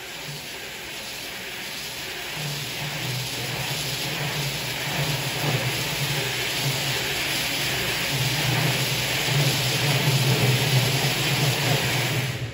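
Two-shaft automatic roll cutting machine running its cutting cycle: a low motor hum and a hiss that grow steadily louder over about twelve seconds, then drop off sharply at the end.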